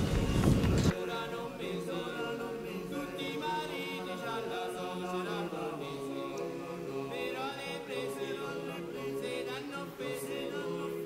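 About a second of street noise cuts off suddenly, replaced by a choir singing a cappella, several voices holding and moving between notes together.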